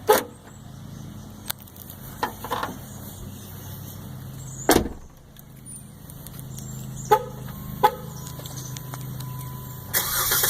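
Scattered sharp clicks and knocks, the loudest about halfway through, over a steady low hum. About ten seconds in, the starter begins cranking the 2015 Jeep Wrangler's 3.6-litre V6.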